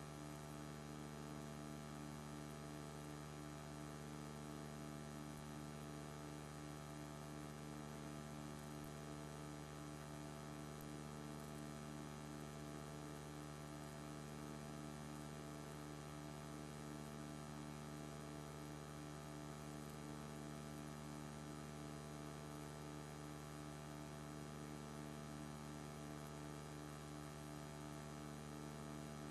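Steady electrical mains hum made of many steady tones, with one of them pulsing evenly; no other sound stands out.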